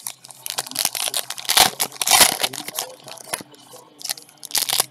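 Foil trading-card pack wrappers being torn open and crumpled by hand: an irregular crinkling, tearing crackle, loudest in bursts about halfway through and again near the end.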